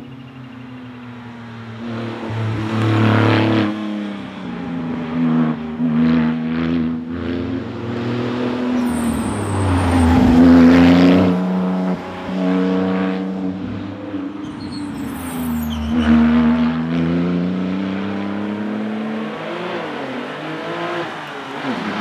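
Porsche 911 Turbo's flat-six engine accelerating hard and passing, its pitch climbing and dropping back at each gear change several times over, loudest as it goes by about halfway through.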